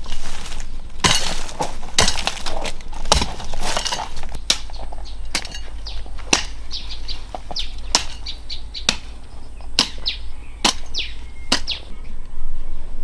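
A hoe chopping into soil in regular strikes, about one a second. Birds chirp in the background.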